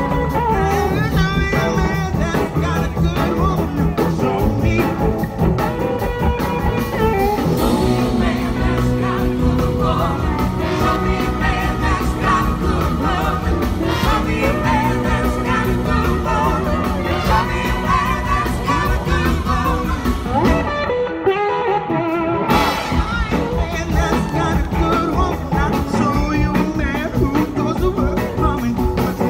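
Live blues-rock band recorded from the crowd: electric guitars, drums and singing. About two-thirds of the way through, the bass and cymbals drop away for a couple of seconds before the full band comes back in.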